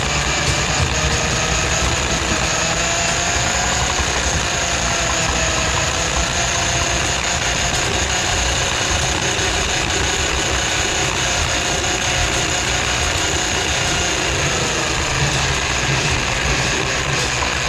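Handheld electric drum drain auger running steadily, its motor whining as the spinning cable works into a kitchen sink drain line clogged with grease. The whine dips slightly in pitch a few seconds before the end.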